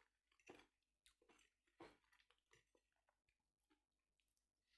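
Faint chewing, with a few short soft clicks of the mouth and food in the first half and little after.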